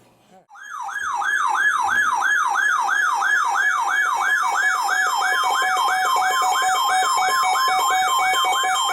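Electronic alert alarm from weather alert receivers going off for a severe thunderstorm warning: a siren-like tone that sweeps over and over, about three times a second, starting about half a second in. About halfway through, a steady alert tone joins it.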